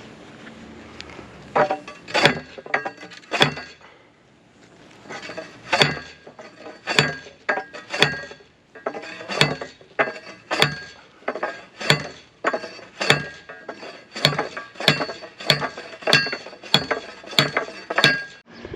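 Handheld steel post driver slammed down again and again onto a wooden post, driving it into hard desert hardpan: a run of ringing metallic clangs, about one to two a second, with a short pause a few seconds in.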